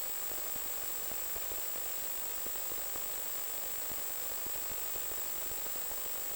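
Steady hiss of static with a thin, steady high whine, from the audio channel of an analog FPV video link (Lawmate 1 W transmitter and receiver). No motor sound comes through.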